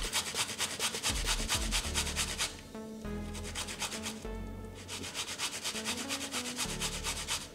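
Zucchini being grated on a hand grater: quick, even rasping strokes, about eight a second, broken by two short pauses midway.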